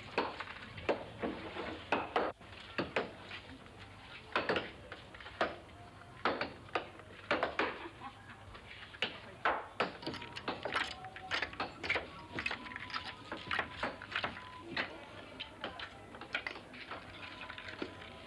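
Hammer tapping small nails into wooden boards, tacking reptile skins out flat to dry: sharp, irregular taps about two a second.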